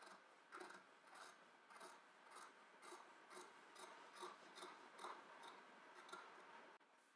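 Tailor's shears snipping through cotton fabric in a steady series of cuts, about two a second, stopping near the end.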